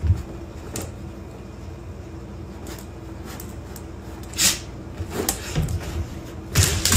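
A few scattered knocks and bumps, like a cupboard or drawer being handled, the loudest right at the start and a cluster near the end.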